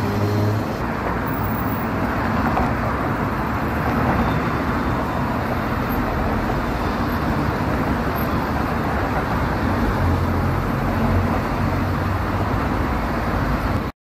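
Busy road traffic: a steady wash of engine and tyre noise from many vehicles. A nearer engine's low hum stands out at the start and again about ten seconds in. The sound cuts off abruptly at the very end.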